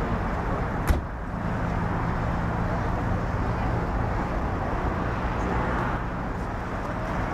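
Steady low rumble of distant engines, with one sharp click about a second in.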